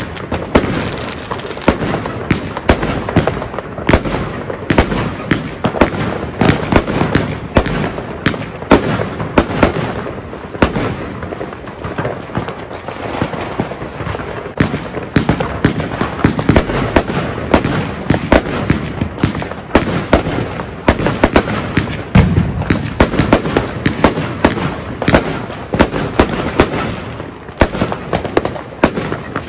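Argento Leviathan firework battery firing: a dense run of bangs and crackles, several a second without a break, thinning a little near the end.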